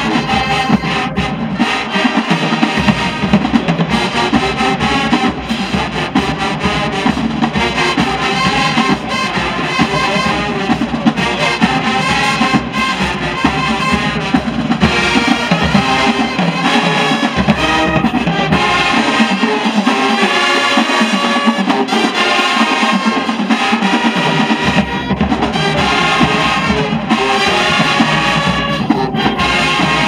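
High school marching band playing a dance number, with brass and a drum section. The lowest bass drops out for a few seconds about two-thirds of the way through, then returns.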